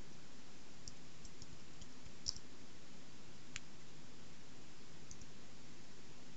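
Computer keyboard keystrokes: a few scattered, faint clicks, the sharpest a little past two seconds in, over a steady low hum and hiss.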